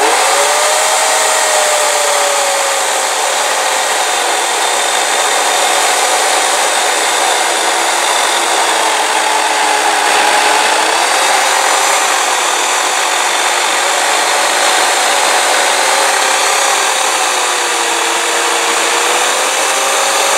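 Worx WG304.1 corded electric chainsaw (15-amp motor, 18-inch bar) ripping a log lengthwise along the side grain. The motor whine starts suddenly, sags a little in pitch as the chain loads into the cut, then holds steady with small wavers over the rasp of the chain cutting wood.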